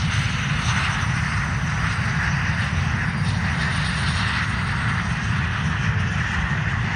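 CT-114 Tutor jet's single turbojet engine running as the aircraft rolls along the runway: a steady jet roar with a low rumble underneath.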